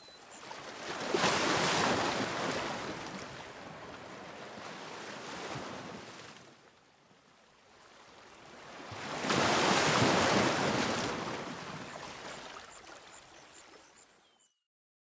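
Waves washing onto a shore: two slow swells of surf, the first peaking about two seconds in and the second about ten seconds in. A few faint bird chirps come at the very start and near the end.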